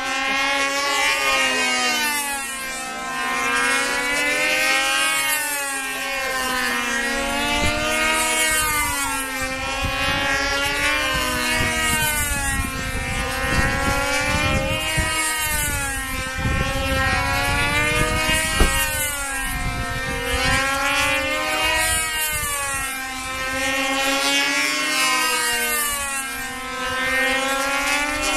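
Control-line model airplane's small engine running at high speed, a high buzz whose pitch rises and falls about once every two seconds as the plane circles the pilot on its lines. A single sharp click sounds about 18 seconds in.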